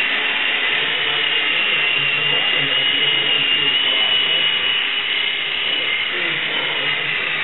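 A motor running steadily, with a high, slightly wavering whine over a steady rushing noise.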